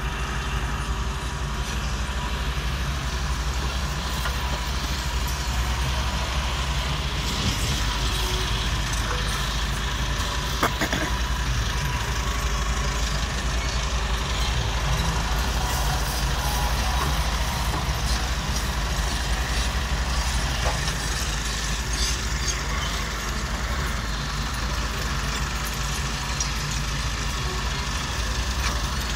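Volvo EW145B wheeled excavator's diesel engine running steadily under load as it digs, with occasional knocks of the bucket against rock.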